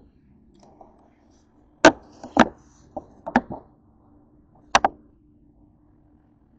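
A handful of sharp clicks and knocks, about five between two and five seconds in, over a faint steady low hum.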